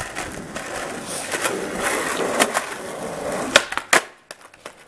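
Skateboard wheels rolling on concrete, growing louder as the rider approaches, then two sharp clacks about half a second apart as he ollies over another skateboard lying on the ground and lands, the board just barely clipping it.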